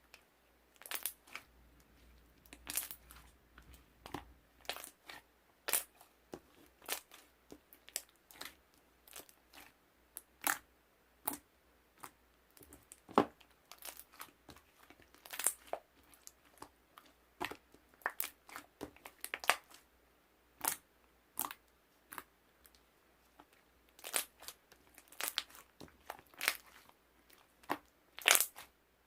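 Irregular crackling and crunching, dozens of short sharp crackles at uneven intervals, as something is squeezed and crumpled by hand.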